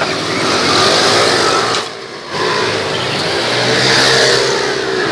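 Go-kart engines running and revving, the pitch shifting as they accelerate. The sound dips briefly about two seconds in, then comes back up.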